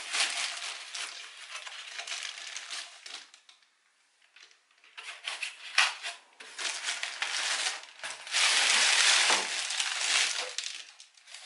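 Plastic wrap crinkling and cardboard scraping as a boxed amplifier is slid out of its cardboard carton. The rustling stops briefly about a third of the way in, with a sharp click soon after, and is loudest in a dense crinkling stretch near the end.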